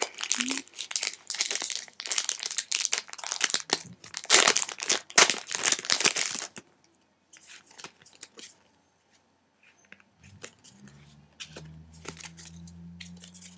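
Foil wrapper of a Pokémon trading card booster pack crinkling and tearing as it is opened, dense for about the first six seconds, then only a few light clicks and rustles.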